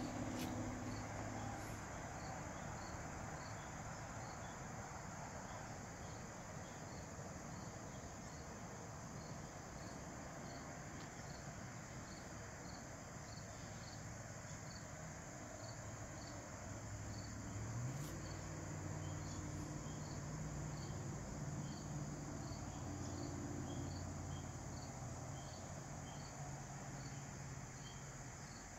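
Crickets chirping in a steady, even rhythm of small high chirps, over a faint low hum that rises in pitch a little past halfway.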